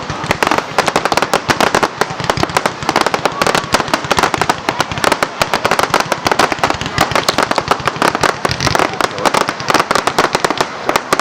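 Fireworks going off in a dense, continuous barrage of rapid crackling and popping bangs, many each second, with no let-up.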